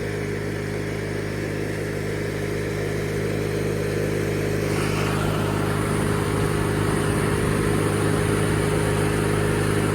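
1997 MTD Yard Machines riding lawnmower's engine running steadily as the mower drives, gradually growing a little louder.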